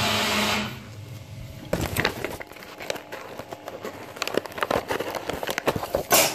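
A steady rushing noise that stops under a second in, then the paper pages of a wall calendar rustling and crackling as they are flipped, with a loud rustle of paper near the end.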